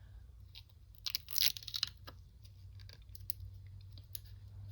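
Small crinkles, crackles and clicks of washi tape rolls and their plastic packaging being handled, with a louder crinkle about a second and a half in, over a faint steady low hum.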